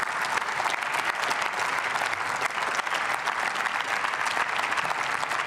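Steady applause from a chamber full of members of parliament, many people clapping at once, greeting the end of a speech.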